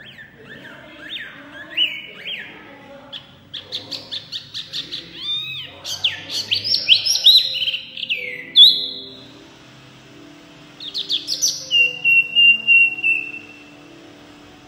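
Caged hwamei singing loudly, a varied song of fast repeated whistled notes and swooping phrases, with a short pause about nine seconds in and a long steady whistle about twelve seconds in.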